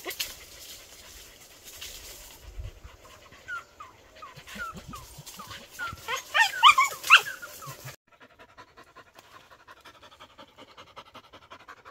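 Hunting dogs give many short, high yelps that glide upward, thickest and loudest about six to seven seconds in. The sound then drops off suddenly to a dog panting steadily and rhythmically.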